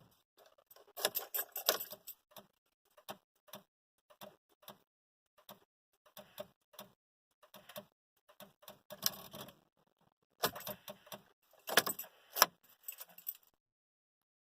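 Keys jangling and clicking in irregular short rattles, with a few louder bursts of jangling; no engine or starter is heard.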